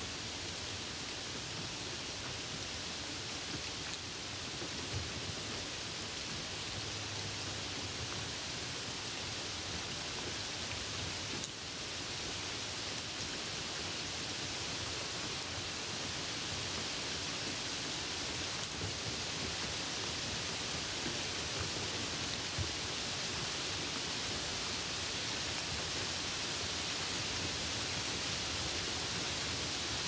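Steady hiss of falling rain, with a few faint pops scattered through it.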